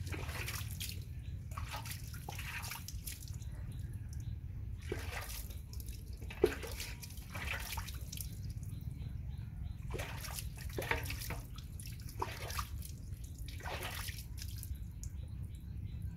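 Water splashed and poured by hand over a baby monkey during a bath, in irregular splashes about once a second, running and dripping off its fur onto wet concrete. One sharp knock about six seconds in.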